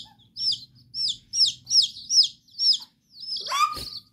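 Baby chicks peeping loudly: a regular run of sharp, falling peeps, about three a second. Near the end the calls thicken into a denser chatter, with one longer falling cry and a single knock.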